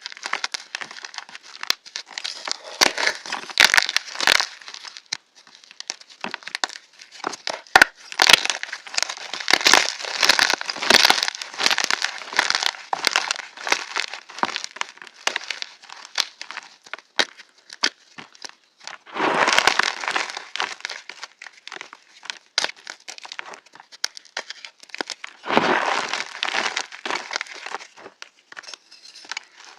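Pieces of fresh reformed gym chalk being crushed, a crisp crackling crunch with many small snaps, in the 'crunchy' sound edit. Two longer, fuller crunches come about two-thirds of the way through and again a few seconds later.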